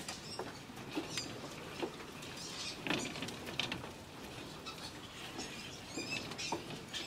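Caged fur-farm animals moving about in wire-mesh cages: scattered clicks and rattles of claws and bodies on the cage wire, with brief high squeaks.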